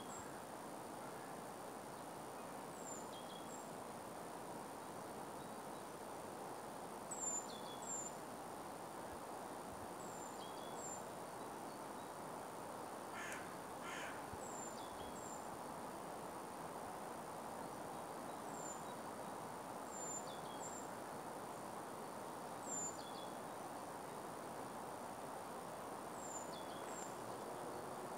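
Outdoor background hiss with small birds giving short, high, falling chirps, mostly in pairs every few seconds. Two short harsh calls come about halfway through.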